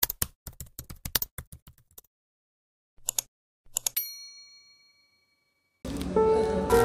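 Intro sound effects: rapid computer-keyboard typing for about two seconds, then a couple of short mouse clicks, then a notification ding that rings on and fades over about a second. Background music comes in near the end.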